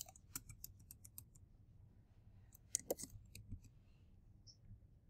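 Faint computer keyboard keystrokes: a quick run of key taps at the start and another short run about three seconds in.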